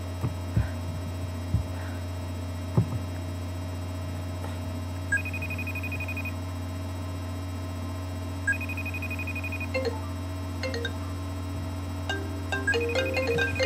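A FaceTime call ringing between Apple devices: twice, several seconds apart, a short trilling ring tone sounds over a steady electrical hum. About twelve seconds in, a marimba-style ringtone begins playing on the receiving device, with a few light taps.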